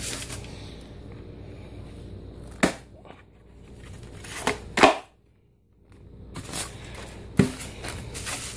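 Unboxing sounds: cardboard and packaging handled with a faint rustle, cut by four sharp snaps and knocks, one of them plastic snapping. The sound drops out briefly about midway.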